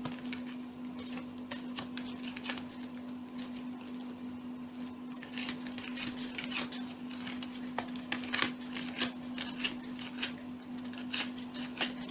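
A deck of tarot cards shuffled by hand: a long run of quick, irregular papery clicks and slaps of card on card, over a steady low hum.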